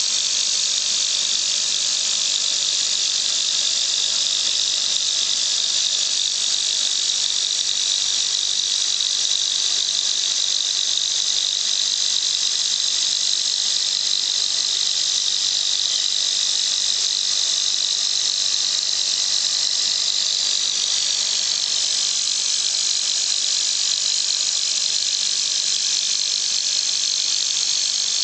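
ProtoTrak CNC mill's spindle spinning a 6-inch three-jaw chuck at speed, set up as a lathe: a steady high-pitched whine and hiss. Its pitch shifts slightly about two-thirds of the way in.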